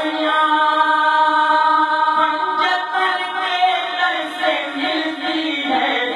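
Two men singing an Urdu manqabat, a devotional poem in praise of Imam Hussain. They draw out one long held note over the first couple of seconds, then move on through the melody.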